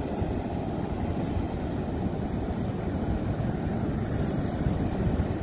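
Wind rumbling unevenly on the microphone over the steady wash of surf on the beach.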